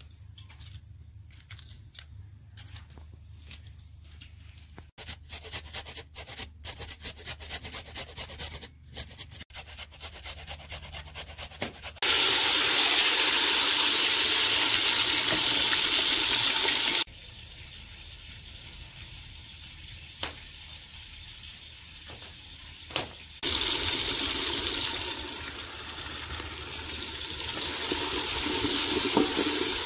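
A knife slicing tomatoes on a plastic plate, quick light clicks that speed up. About twelve seconds in, a sudden loud sizzling hiss as the tomatoes fry in hot oil in a metal pot. The hiss cuts off, then comes back and swells while they are stirred.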